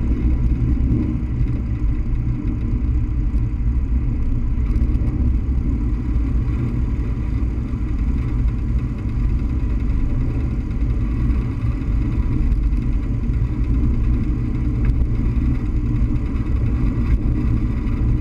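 Single-engine propeller trainer aircraft's piston engine running steadily as it rolls along the runway, mixed with a low, steady wind rumble over the wing-mounted camera.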